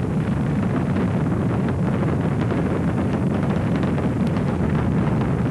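Space Shuttle engines firing at ignition on the launch pad: a steady, loud, deep rumble with crackling.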